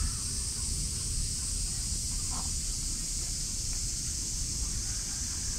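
Steady, high-pitched chorus of insects in the trees, unchanging throughout, over a low rumble of wind on the microphone.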